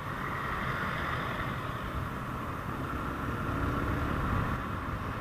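Motorcycle running steadily while being ridden, with a constant rush of wind and road noise.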